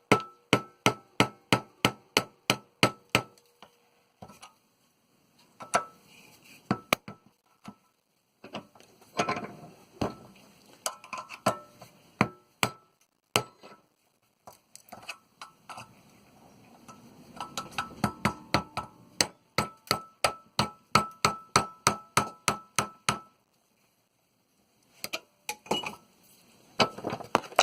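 Hammer striking metal in quick runs of blows, about four a second, each with a brief metallic ring, driving a tool in to pierce the retaining piece of a water heater pressure relief valve.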